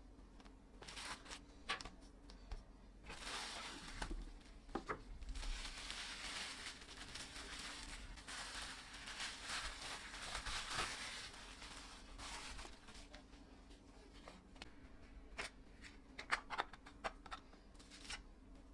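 Bubble wrap crinkling and rustling as it is pulled open and unwrapped from a small phone, with a few sharp plastic clicks from handling the phone near the end.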